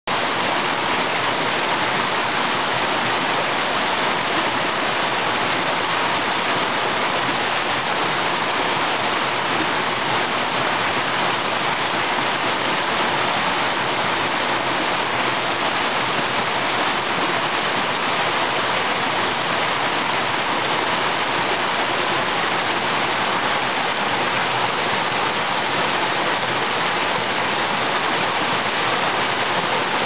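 Water of a rocky mountain creek cascading over boulders and fallen logs in a small waterfall: a steady, unbroken rush of falling and churning water.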